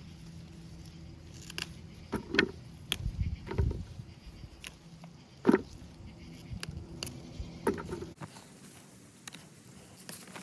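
Scattered rustling and light knocks of garden plants and vegetables being handled during harvesting, with a few louder knocks, over a low steady hum that cuts off suddenly about eight seconds in.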